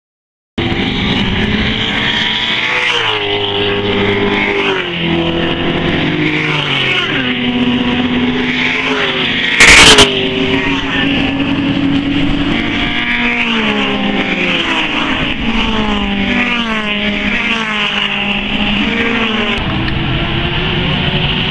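Several classic racing-car engines revving hard, their pitch climbing and dropping back at each gear change as a pack of cars goes by. The sound cuts in about half a second in, and there is one brief, very loud thump about ten seconds in.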